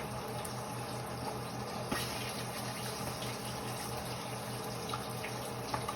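Kitchen tap water running steadily into a sink, with a couple of faint knocks about two seconds in and near the end.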